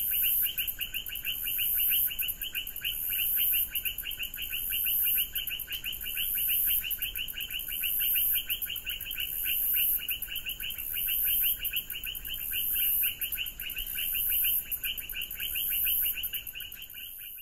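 Tropical rainforest animal chorus: a fast, steady pulsing trill with a very high insect-like buzz that swells and fades about every second and a half. It stops abruptly at the end.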